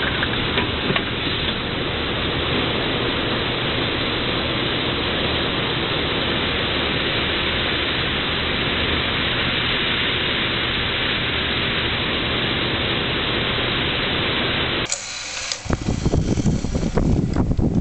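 Steady mechanical running noise of a plastic injection molding machine, with a few faint clicks near the start. Near the end it cuts to the uneven clicking and whirring of a small mold mechanism being driven.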